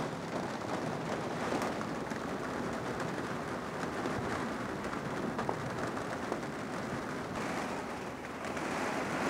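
Steady rain and wind on the greenhouse roof, heard from inside as an even hiss.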